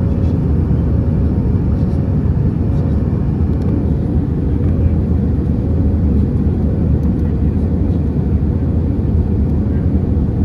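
Airbus A320 cabin noise heard from a window seat in flight: a steady, even rumble of the engines and airflow with a faint constant hum over it.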